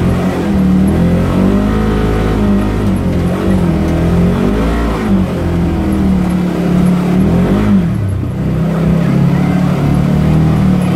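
Polaris General side-by-side's engine heard from the cab, revving up and down with the throttle off-road. The pitch rises and falls over and over, drops sharply about eight seconds in, then runs steadier.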